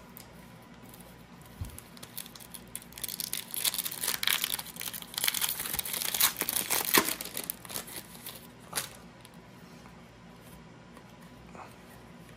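Foil wrapper of a Panini Donruss basketball card hobby pack being torn open and crinkled by hand, a dense crackle lasting about five seconds from some three seconds in, followed by a single sharp tap about nine seconds in.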